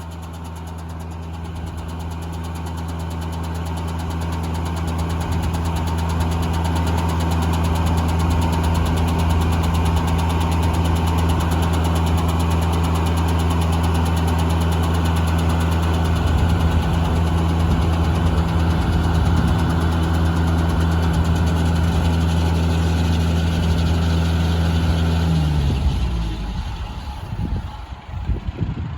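Engine powering a Foley Belsaw circular sawmill running steadily, growing louder over the first several seconds, then shutting down and winding to a stop near the end.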